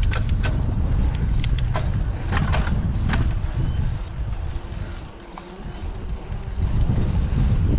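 Wind buffeting the microphone as a heavy low rumble, easing briefly about two-thirds of the way through. A few sharp clicks and knocks sound in the first three seconds.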